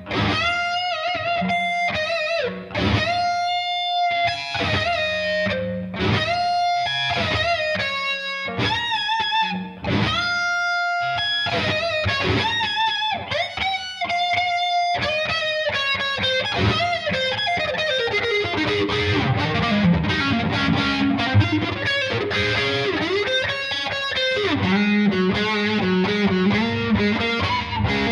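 Epiphone Firebird Studio electric guitar playing a lead: single held notes with vibrato, turning into faster, denser runs about halfway through.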